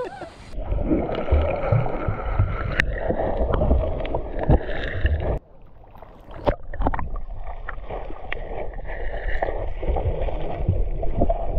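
Steady rush of river water with wind rumbling on the microphone and a few scattered knocks, broken by a short dip about five seconds in.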